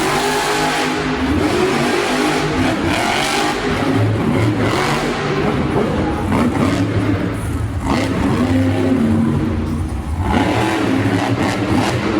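Monster truck engines revving hard, the pitch climbing and dropping again and again.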